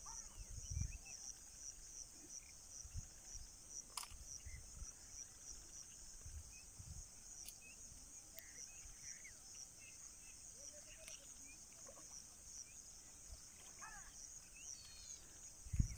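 Crickets chirping in a steady, high, evenly pulsing chorus, with a few faint low thumps.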